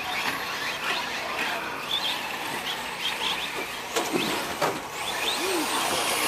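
Radio-controlled Team Associated SC10 4x4 electric short course trucks racing, their motors whining up and down in pitch as they speed up and slow down, over a steady rushing background.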